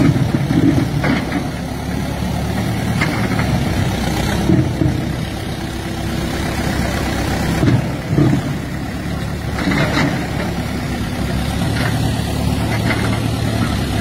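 Diesel engine of a Terex TLB 740S backhoe loader running steadily while the machine works, with a few knocks and clanks.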